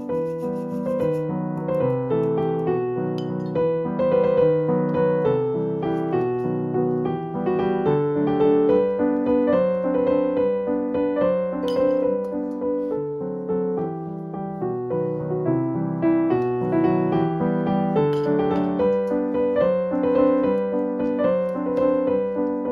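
Background instrumental music: a continuous melody of separate pitched notes.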